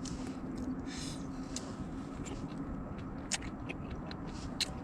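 A person chewing a hotpot squid skewer close to the microphone: scattered soft mouth clicks and smacks over a steady low hum.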